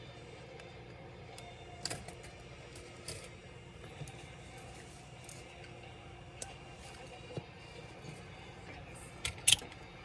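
Scattered light clicks and taps of small tools and laptop parts being handled during disassembly, with a sharper pair of clicks near the end, over a steady low hum.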